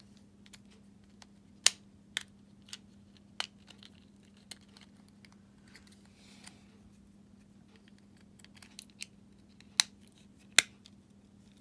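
Sharp plastic clicks and small taps as a Fiat 500 flip-key fob is put together by hand, its shell parts and spring-loaded key blade clicking into place. The loudest click comes about a second and a half in, and two more come near the end.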